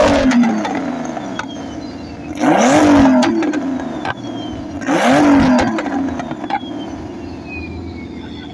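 Engine with a loud exhaust revved in quick blips: a rev falling away at the start, then two more about 2.5 s apart, each rising sharply in pitch and dropping back to a rumbling idle.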